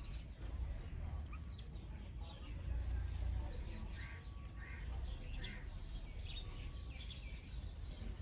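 Wild birds chirping: many short, high notes from several birds, over a steady low rumble.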